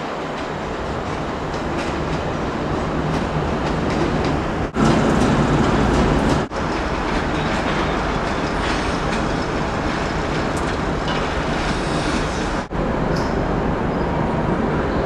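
Diesel trains moving through a station: engines running and wheels rolling over the rails, in several short takes. The sound cuts off sharply for a moment between them, about 5, 6.5 and 13 seconds in.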